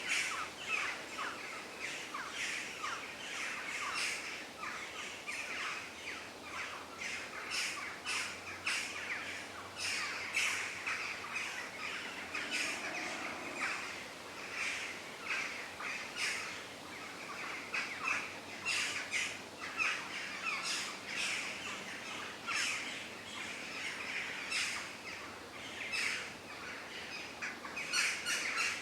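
Forest birds calling: a busy chorus of many short chirps and calls overlapping, without pause.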